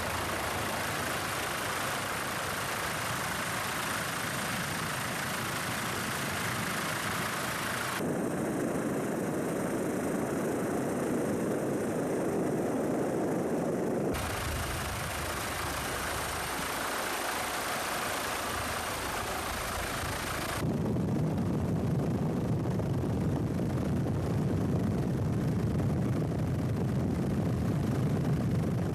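Steady engine-like mechanical noise with a dense hiss. It changes abruptly in pitch and character about eight, fourteen and twenty-one seconds in.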